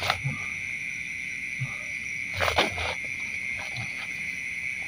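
Steady night-time chorus of crickets, a continuous high trill, with a few short harsh noises on top: one right at the start and the loudest pair about two and a half seconds in.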